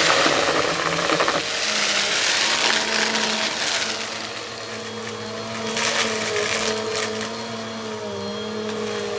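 Bissell vacuum cleaner running: a steady motor hum with swells of rushing noise that come and go, and a slight dip in pitch near the end.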